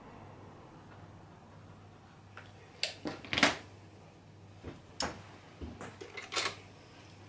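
Fabric strips being gathered and moved about on a cutting mat: a few short rustles and taps, the loudest about three and a half seconds in, after a quiet first few seconds.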